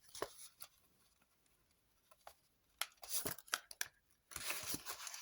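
Paper pages and cards of a handmade junk journal being handled: scattered light taps and clicks, then paper rustling about four seconds in.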